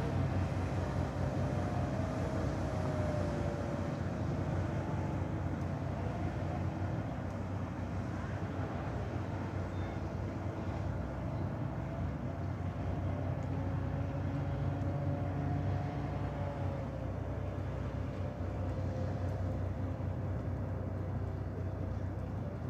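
Motor yacht's engines running with a steady low drone, a faint higher hum drifting slightly in pitch over it.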